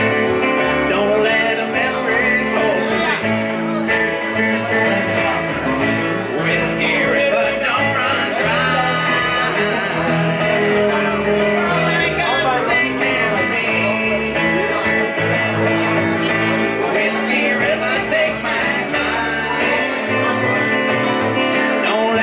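A country band playing live: a Telecaster-style electric guitar over a plucked upright bass and a strummed acoustic guitar, with a voice singing at times.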